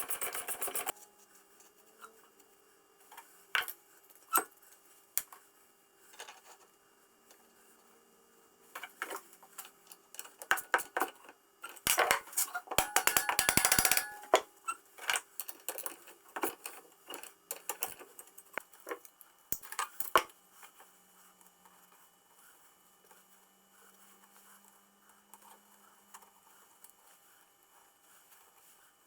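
Metal parts of a tram gear shifter being handled and fitted together: scattered clinks and taps, with a rapid rattling run lasting about two seconds around halfway through.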